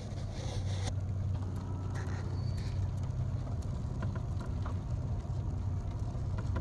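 Golf cart driving slowly along a street: a steady low hum from the cart with road and wind noise.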